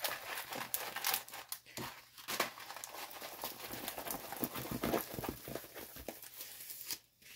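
Plastic crinkling and rustling as a diamond painting kit is handled and unwrapped, with irregular crackles and rubs.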